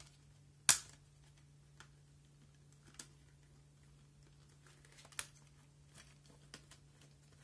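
Hard plastic packaging clicking and ticking as a hair clipper is pried out of its moulded plastic holder: one sharp click about a second in, then a few fainter clicks and taps. A low steady hum runs underneath.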